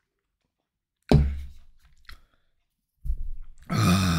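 A man finishes a swig from a can of wine sour and lets out a long, loud "ahh" of satisfaction near the end. Before that there is a sudden thump about a second in.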